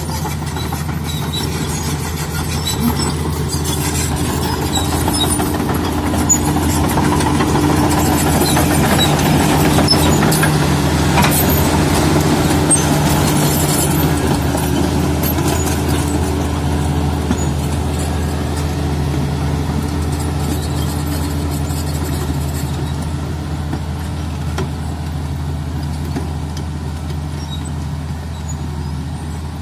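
Komatsu D85 crawler bulldozer's diesel engine running steadily under load as it pushes soil, with the steel tracks clattering. It gets louder and rougher for several seconds in the middle as the machine passes close by.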